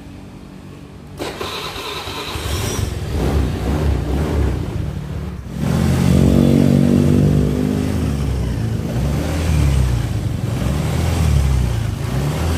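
Suzuki Nex scooter's single-cylinder engine started on the electric starter about a second in, then run and revved up and down several times in the second half. It runs smooth, with no growling or clacking from the CVT side: new bearings on the rear pulley shaft and in the final-drive gear box have cured it.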